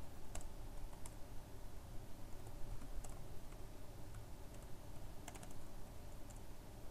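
Faint, irregular keystrokes on a computer keyboard as text is typed, with a small flurry of keys about five seconds in, over a steady low background hum.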